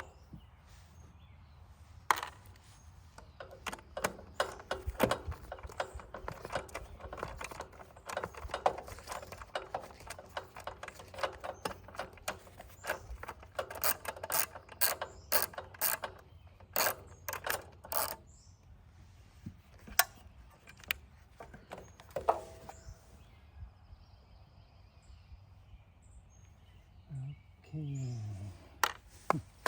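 Hand-tool work on metal: dense, irregular clicks and clatter of the kind a ratchet and small parts make, thinning out after about twenty seconds. Near the end there is a short low sound that falls in pitch.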